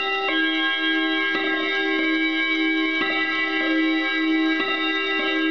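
1954 Hermle mantel clock chiming: its hammers strike the chime gongs four times, each strike ringing on over the one before, with a slow pulsing throb in the lowest note.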